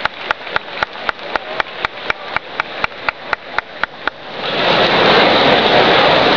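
Rhythmic hand claps, about four a second, then about four seconds in the arena crowd breaks into loud, steady cheering and applause.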